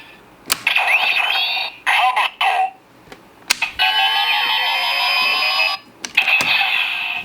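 DX Kamen Rider Fourze toy belt playing its electronic switch sound effects through its small speaker, with gliding and stepping tones. Sharp plastic clicks of the switches and levers come about half a second in, near the middle, and twice near the end.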